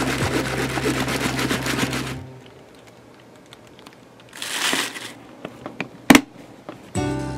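Background music for about two seconds, then a short rustle of plastic bubble wrap, and just after six seconds a sharp, loud snap of a plastic cooler box lid shutting on its latch.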